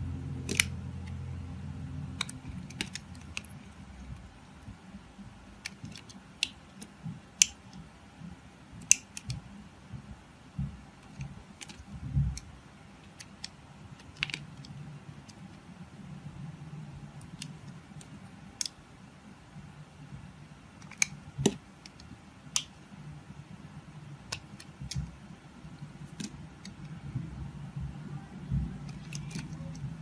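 Utility knife blade cutting thin slices off the edge of a translucent blue soap bar: sharp, irregular clicks and crackles as the blade passes through the soap, a few much louder than the rest, over a faint low rumble.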